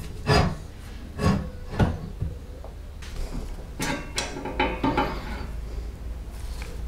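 Metal knocks, clicks and scrapes of rusty reel lawn mower parts being handled: the drive wheel lifted off and the small pinion gear pulled from its axle stub. A string of separate short knocks, thickest about four seconds in.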